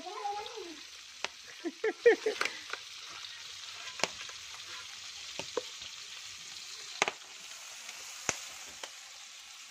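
Small whole fish deep-frying in a wok of hot oil: a steady sizzle with scattered sharp pops and knocks, the loudest cluster about two seconds in.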